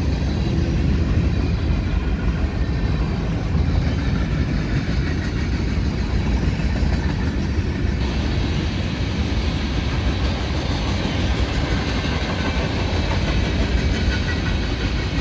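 Freight cars of a CSX manifest train (tank cars, covered hoppers and boxcars) rolling past: a steady rumble of steel wheels on the rails. The sound turns brighter about halfway through.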